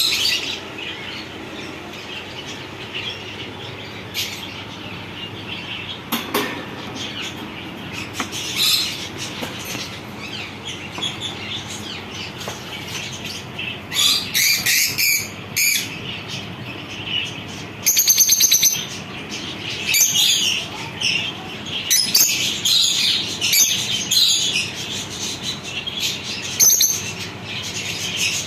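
Lovebirds chirping and chattering in short, high-pitched bursts, with a rapid string of calls about two-thirds of the way through.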